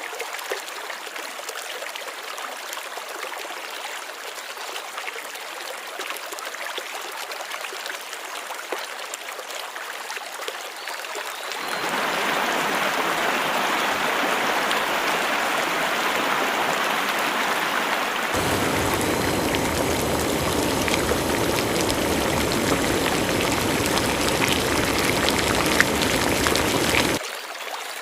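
Mountain stream water running over stones, a steady rushing. It grows abruptly louder and fuller about halfway through, deeper again a few seconds later, then drops back suddenly near the end.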